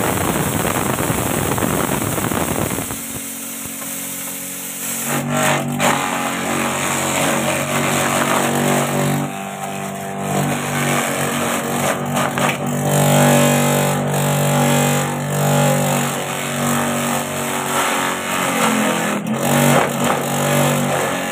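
Small electric-motor-driven chopper-grinder grinding corn: a dense grinding noise for about the first three seconds, then the machine runs on with a steady hum, broken by sharp cracks now and then as pieces are struck.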